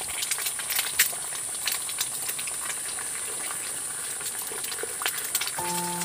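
Omelette frying in hot vegetable oil in a pan: a steady sizzle with many small crackles and pops. A steady low hum comes in near the end.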